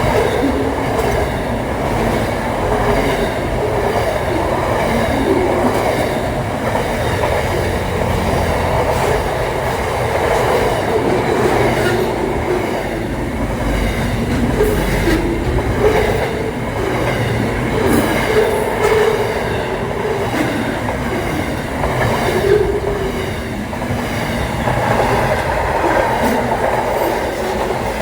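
Pacific National freight train rolling past, a continuous rumble of wagons with occasional clacks of wheels over the rail joints.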